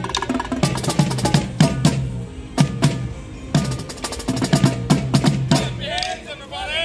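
A marching drumline of snare drums and tenor drums plays a fast cadence, with sharp stick and rim clicks among the pitched drum strokes. The drumming thins out in the last second.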